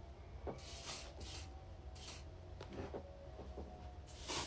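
Aerosol setting spray hissing from a can in about five short puffs, the longest near the end, with a few faint clicks between.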